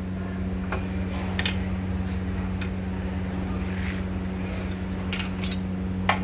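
Scattered metal clicks and clunks from a Tata 950 truck gearbox being shifted by hand with a rod in its top opening, a check of the freshly assembled gear selection; the loudest clunk comes about five and a half seconds in. A steady low hum runs underneath.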